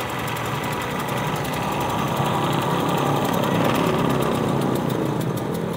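Ryu mini bandsaw with a 350-watt electric motor running steadily, its motor and blade humming evenly without cutting.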